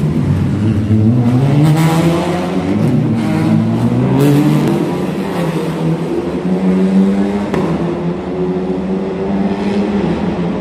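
Several race car engines revving through a hairpin, their pitch rising and falling with the throttle as the cars pass one after another, with a few sharp cracks in the first half.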